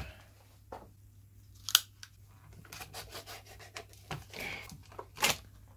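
Clear plastic blister pack being pried and pulled open by gloved hands: plastic rubbing and crinkling, with a sharp snap about two seconds in and another near the end.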